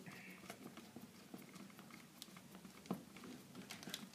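Faint, scattered small clicks and scrapes of a screwdriver turning a terminal screw on a thermal overload relay, with one slightly louder click about three seconds in.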